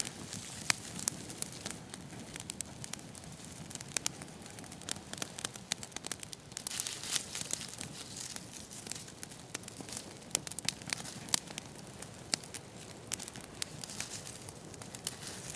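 A small, newly lit fire of dry grass tinder and twigs crackling as it catches, with irregular sharp snaps that come thickest about halfway through, mixed with rustling of the tinder and sticks being handled.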